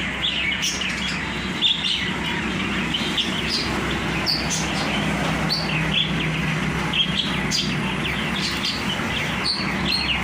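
A group of small caged birds chirping busily, many short, quick calls overlapping, over a steady low hum.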